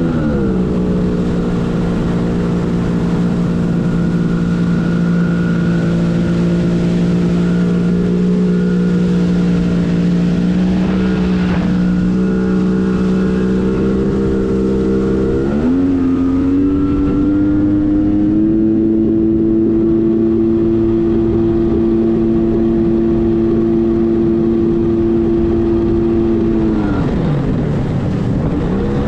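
1997 Arctic Cat TigerShark Monte Carlo 1000 personal watercraft's three-cylinder two-stroke engine running under way over a steady rush. The engine note drops as the throttle comes off at the start and holds low. About halfway through it rises and holds at a higher pitch, then falls off near the end and picks up again briefly.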